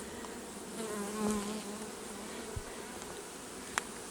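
Honeybees buzzing around an open hive, a steady hum with one louder, nearer buzz about a second in. A couple of faint clicks follow later.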